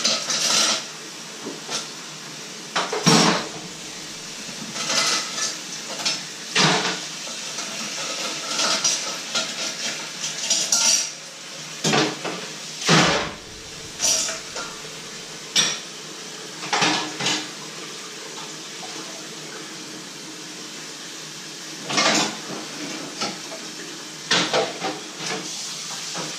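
Dishes and cutlery clinking and clattering as they are washed by hand in a stainless steel sink, with tap water running underneath and sharp knocks every few seconds.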